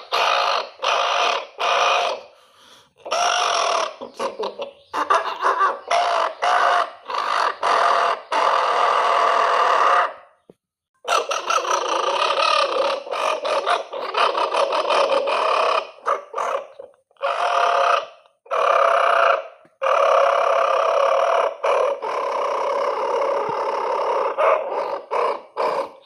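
Woodpecker-style bird call sound effects, chopped and repeated in quick rhythmic bursts to make a short comic piece of music. It stops briefly about ten seconds in.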